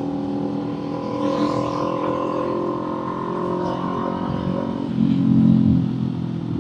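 Kawasaki Z400's parallel-twin engine and exhaust running steadily while riding, a level multi-toned engine note; about five seconds in it briefly gets louder as the throttle opens.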